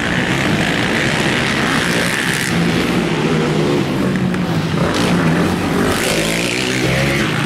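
Several racing ATV (quad) engines revving and rising and falling in pitch as the machines race around a motocross track.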